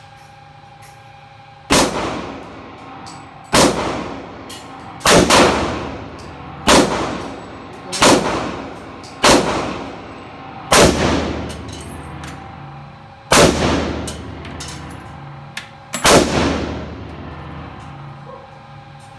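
AR-15 rifle firing single shots in slow semi-automatic fire, about ten in all, one to three seconds apart with a longer pause near the end. Each shot rings on in the echo of an indoor range.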